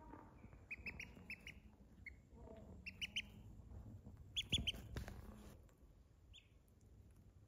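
Domestic duckling peeping: short high cheeps in quick runs of three or four, with single peeps between and one near the end. A couple of soft knocks sound near the middle, under the loudest peeps.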